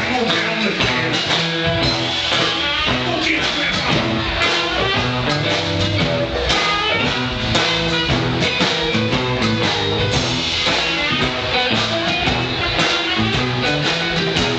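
Live band playing a song with guitar and a steady beat.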